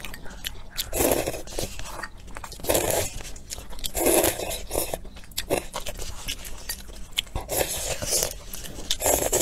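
Rice noodles in chicken soup being slurped up with chopsticks: about five short slurps, roughly every one to two seconds, with chewing in between.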